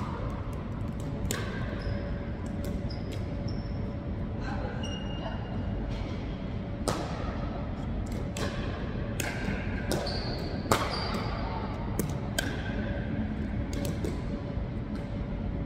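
Pickleball paddles hitting the plastic ball in a rally: sharp pops at uneven intervals about a second or two apart, each ringing briefly and echoing in a large gym, over a faint steady hum.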